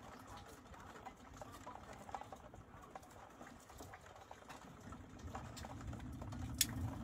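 Faint pattering of rain with scattered light ticks. A low rumble of distant thunder swells over the last two seconds, and a single sharp click comes just before the end.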